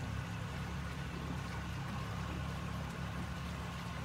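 Engine of a small open tour boat running steadily at cruising speed: an even low drone with a faint steady whine above it.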